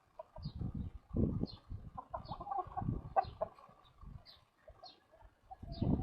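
Hens clucking, with short high chirps repeating every half second or so and a few low thumps.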